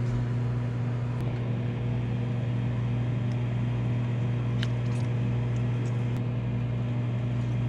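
Microwave oven running with a steady low electrical hum, with a few faint clicks from a tuna can being handled.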